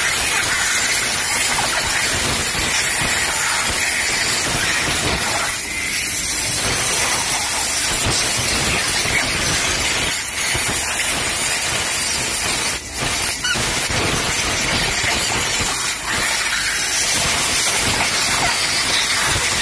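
Compressed-air blow gun hissing steadily as it blows freshly moulded silicone ice-cube trays off a hot compression mould. The hiss drops briefly a few times as the air is let off and turned back on.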